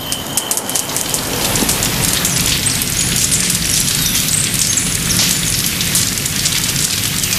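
Rain falling steadily: a dense hiss dotted with many small drop ticks.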